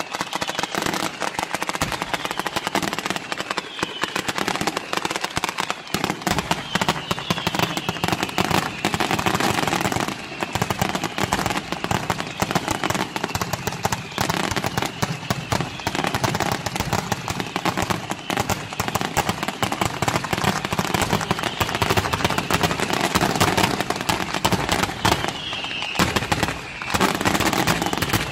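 Sanseverese-style ground fireworks battery firing: a dense, unbroken rapid-fire crackle and banging of firecrackers and low bursts, steady in loudness throughout.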